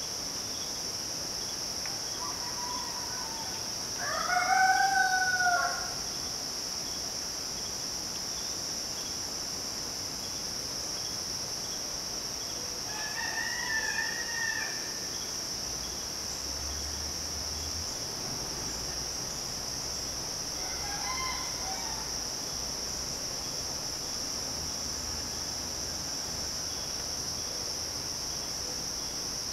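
Three rooster crows: the first and loudest about four seconds in, two fainter ones later, over a steady high-pitched drone of midsummer insects.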